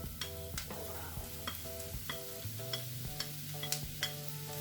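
Mushrooms frying with garlic and onion in a pan, sizzling while a utensil stirs them and clicks against the pan many times. Soft background music plays underneath.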